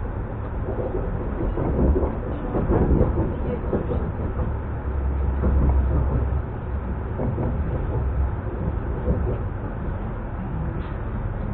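ES2G 'Lastochka' electric multiple unit heard from inside a car while running: a steady low rumble of wheels on rail with a dense clatter. It swells louder twice, about two and six seconds in, then settles a little quieter as the train comes alongside a station platform.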